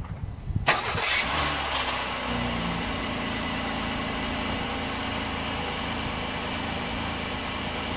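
A car engine cranking and catching about a second in, then idling steadily.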